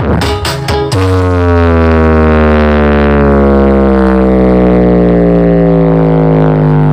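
Large stacked-subwoofer street sound system playing loud electronic dance music. A beat with sharp hits runs for about the first second, then gives way to one long, deep droning bass note that slowly glides down in pitch.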